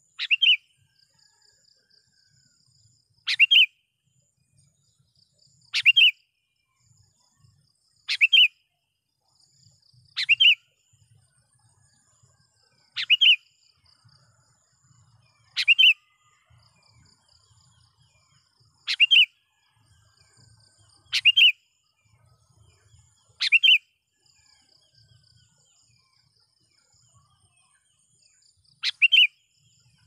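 A sooty-headed bulbul giving a short, loud, sharp call about every two to three seconds, eleven calls in all, with a longer pause near the end. It is calling to challenge rival bulbuls.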